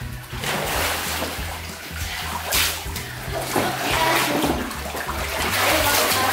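Water splashing and sloshing in a small above-ground pool as children wade and clamber onto an inflatable float, with a sharper splash about two and a half seconds in, over background music with a steady bass line.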